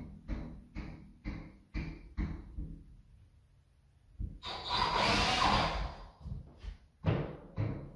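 Background music with a steady drum beat, about two beats a second, that stops about three seconds in. A handheld power drill then runs for about two seconds, boring a hole in the closet wall for the shelf mounting. The drum beat comes back near the end.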